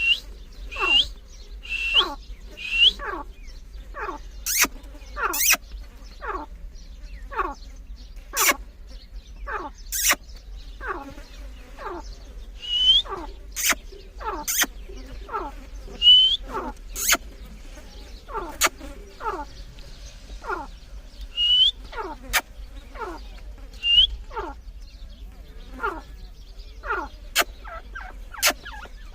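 Grey francolins (teetar) calling: a steady run of quick whistled notes that slide downward, about one a second, mixed with short high up-turned notes and sharp clicks.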